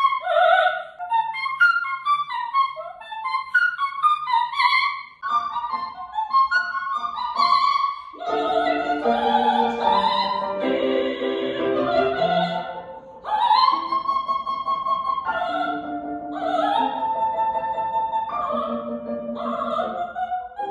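A classical soprano singing opera unaccompanied in a small tiled bathroom. About five seconds in it cuts to the soprano singing in a concert hall, accompanied on a Steinway grand piano.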